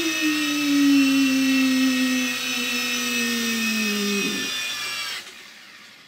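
Small electric toy RC helicopter in flight: a steady whine of its tiny motors and rotor, sinking slowly in pitch for about four seconds, then cutting off about five seconds in.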